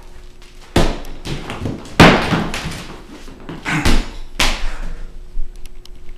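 Boxing gloves and shoes dropped onto a hardwood floor: four sharp knocks and thuds, the second the loudest, each ringing briefly in the room.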